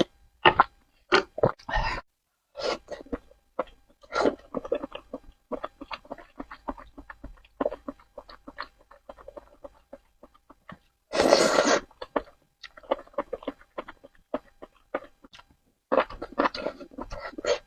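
Close-miked eating sounds from spicy noodles: a steady run of wet chewing and mouth clicks, with a louder noisy burst of about half a second some eleven seconds in and another cluster near the end.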